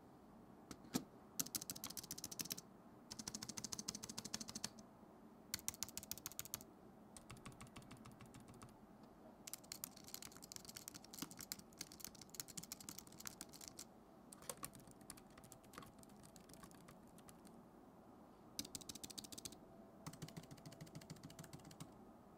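Typing on a Logitech K380 wireless keyboard with round keys, then on a white Apple keyboard: quiet runs of rapid key clicks broken by short pauses.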